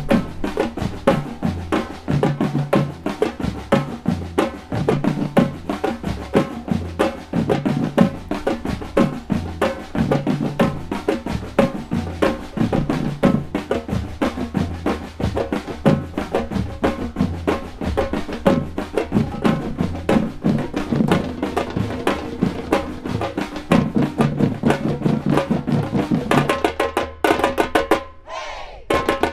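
Street-percussion drum ensemble playing a merengue groove: bass drums, slung drums and a tall hand drum beating a fast, steady rhythm together. The drumming breaks off briefly about a second before the end and then comes back in.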